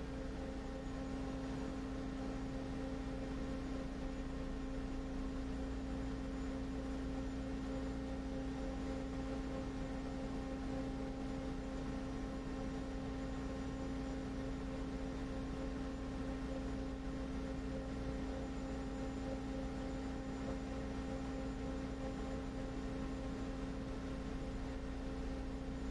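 Metal lathe running steadily while a tailstock drill bores into a spinning zinc bar, giving an even hum with a clear held tone and no break.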